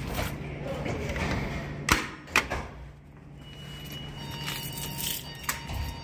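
Siemens HMS-D dual-action fire alarm pull station being operated: two sharp plastic clacks about half a second apart, about two seconds in, as the front is pushed in and the handle pulled down. A faint steady tone sets in about four seconds in.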